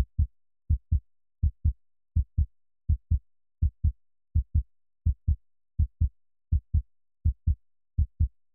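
Heartbeat sound effect: pairs of short, low thumps, lub-dub, repeating at an even pace of about four beats every three seconds.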